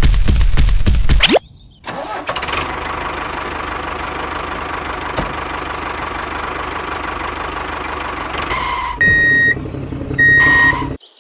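A fast run of loud knocks ending in a rising whoosh about a second in, then a tractor engine starting and running steadily, with two short horn beeps near the end.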